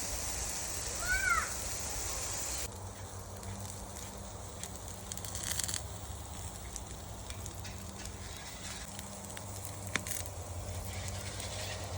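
Outdoor ambience by a grill: a bird chirps once about a second in over a steady high hiss, which cuts off suddenly before three seconds in. After that come faint scattered clicks and crackle over a low hum.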